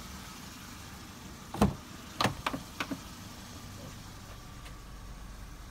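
A car's front door being opened: one sharp click of the handle and latch, then three lighter clunks in quick succession as the door swings open.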